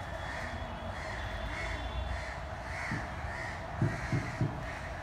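Crows cawing over and over, about two caws a second, with a few soft low thumps near the end.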